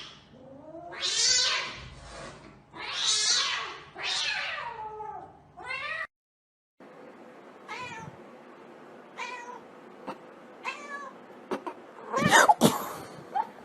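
Cat meowing: three long drawn-out yowls in the first half, then after a short break a few brief meows spaced over several seconds, with sharp knocks and a louder noise near the end.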